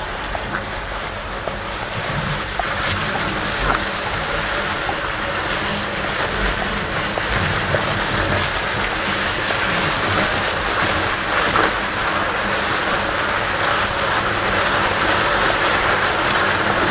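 A car tyre dragged by a Belgian draft horse, scraping and rushing over wet asphalt: a steady rough noise that grows slightly louder, with a few light knocks scattered through it.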